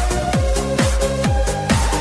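Electronic dance music with a steady kick-drum beat and held synth notes.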